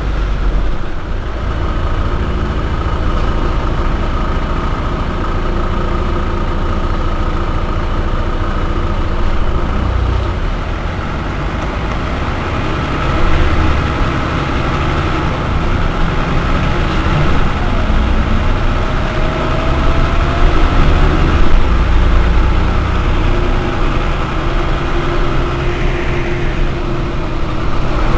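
Mercedes-Benz O405 N city bus engine idling steadily with a low rumble while the bus stands still.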